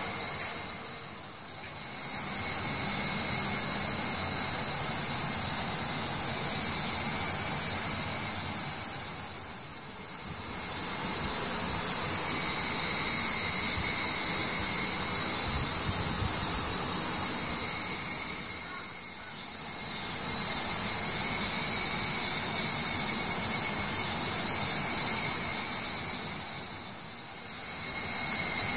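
A steady, high-pitched hiss with faint steady tones in it. It fades down and back up about three times.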